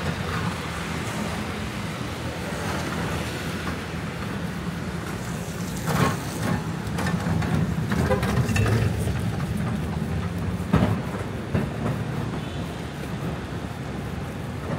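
Steady low vehicle rumble, with several sharp clatters about six, eight and eleven seconds in.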